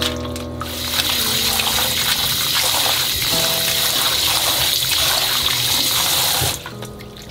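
Kitchen tap running water into a glass bowl of soaked dried radish strips in a stainless steel sink, splashing as they are rinsed by hand. The flow starts about half a second in and stops near the end.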